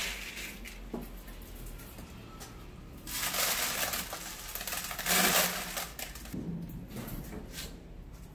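Dry grain sprinkled by hand onto a homemade rat trap's flat bait platforms, pattering in two short spells, about three seconds in and again around five seconds in.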